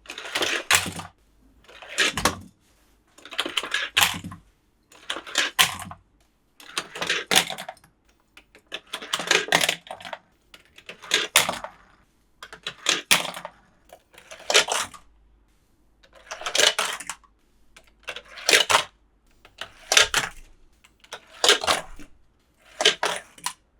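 A series of short bursts of plastic clicking and rattling, about one every one and a half to two seconds with silence between, as small plastic toy pieces and packaging are handled during an unboxing.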